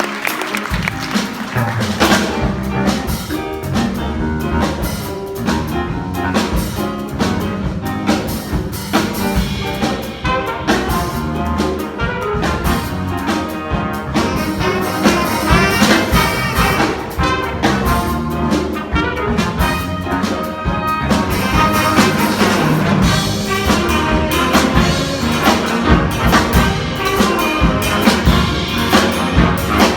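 Band music with brass and a drum kit playing a steady beat.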